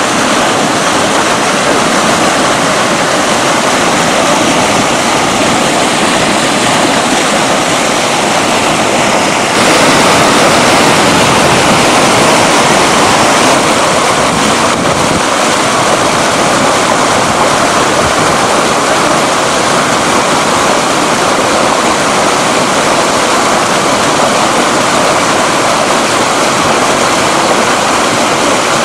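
Fast-flowing whitewater rushing steadily, a loud, even wash of water noise that gets a little louder about ten seconds in.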